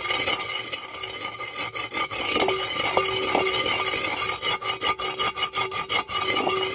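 Wooden pestle grinding roasted cumin seeds and black peppercorns in a terracotta mortar: a continuous gritty rubbing and scraping of wood on clay. A run of quick clicks comes in the second half.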